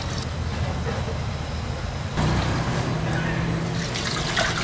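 Water poured from a large wok into a stainless steel pot of soaking kelp, trickling off in the first moment. About two seconds in, a low steady hum begins under the stall's background noise.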